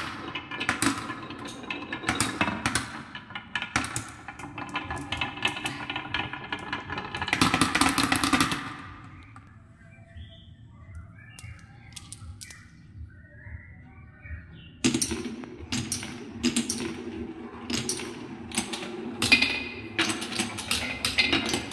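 Glass marbles rolling and rattling along wooden marble-run tracks, with sharp clicks as they drop and knock against the wood. The rolling dies down about nine seconds in, leaving only faint scattered sounds, and starts again suddenly about fifteen seconds in as marbles run down a wooden spiral.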